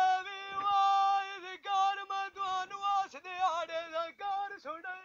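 A man singing a Punjabi dhola unaccompanied, holding a long note and then moving into shorter phrases with wavering, ornamented turns.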